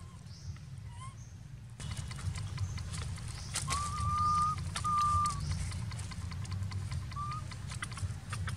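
High, thin whistle-like animal calls: one held for nearly a second, a shorter one right after, and a brief one later, over a steady low rumble.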